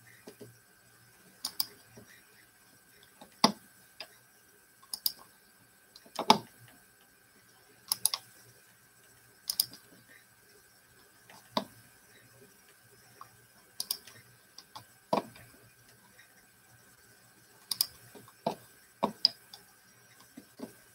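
Slow, scattered key presses on a keyboard, sharp single or paired clicks every one to two seconds, as when typing out names one key at a time. A faint steady high tone hums underneath.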